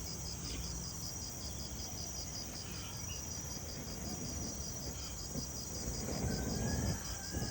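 An insect chirping steadily in an even, rapid pulse, over a low rumbling noise that grows louder near the end.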